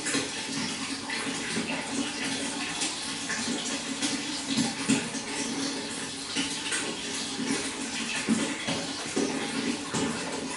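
Flowing water splashing and trickling steadily.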